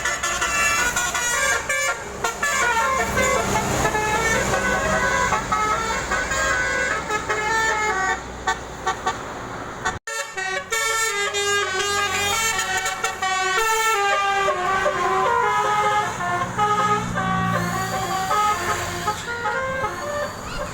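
Telolet basuri bus horns, multi-trumpet musical horns, playing a tune in stepped notes over the low rumble of bus engines. The sound breaks off very briefly about halfway through, then the melody starts again.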